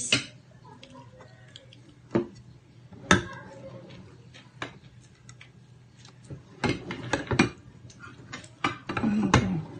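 Tableware clinking and tapping during a meal: a few separate sharp clicks about two, three and four and a half seconds in, then a busier run of clicks and clatter in the second half.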